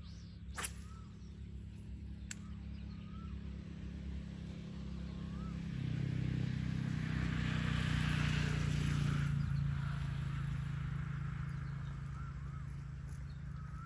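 A motor engine hums steadily, swells louder about six seconds in as it passes close by, then slowly fades. Small bird chirps come now and then, with a sharp click near the start.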